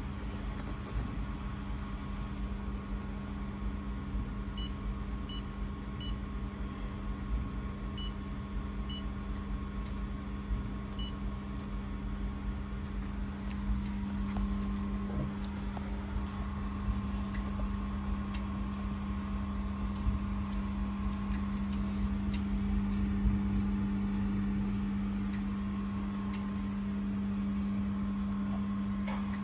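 Steady electrical hum of a handheld fiber laser welding machine running, growing louder about halfway through and cutting off at the end, with several faint short beeps in the first half.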